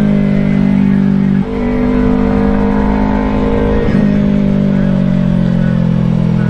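Yamaha YZF-R3's parallel-twin engine running under the rider, its pitch sliding slowly down as the bike slows. The pitch steps up twice, about a second and a half in and again about four seconds in, each time the bike is shifted down a gear.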